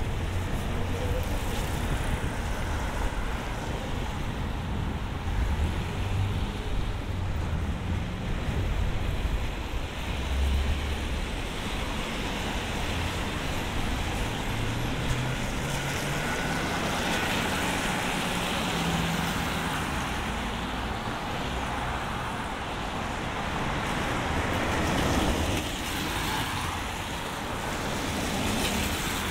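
Street traffic on wet roads: a steady hiss of tyres and engine rumble from passing cars, swelling as vehicles go by.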